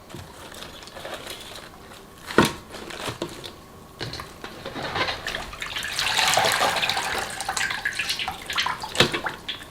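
Salt brine pouring and splashing over halved napa cabbages in a basin, building about four seconds in, with a sharp knock a couple of seconds in and another near the end.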